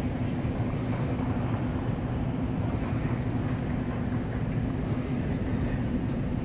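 Steady low rumble of a vehicle engine, with a constant hum throughout. Faint short high chirps repeat about once a second over it.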